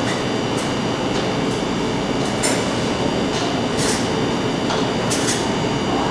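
Steady, fairly loud kitchen background noise, with about half a dozen short scrapes of a metal spatula against the cake plate as mascarpone cream is smoothed around the sides of the cake.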